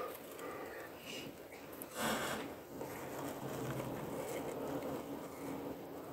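Horsfield's tortoise eating kale in wood-chip bedding: faint small crunching and leaf-tearing, with one louder brief rustle about two seconds in.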